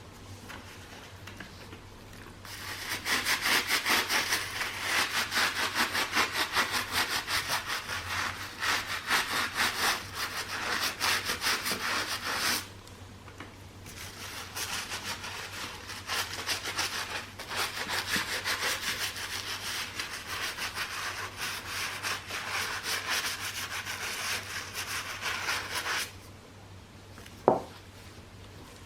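Rapid back-and-forth rubbing strokes on a sneaker, in two long runs with a short pause between them. A single sharp click near the end.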